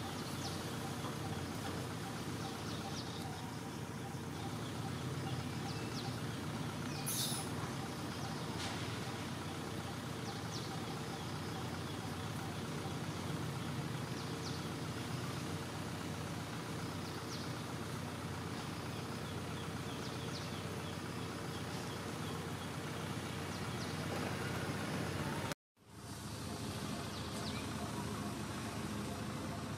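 Steady outdoor background noise with a low hum and a few faint, short, high chirps; the sound drops out for a moment near the end.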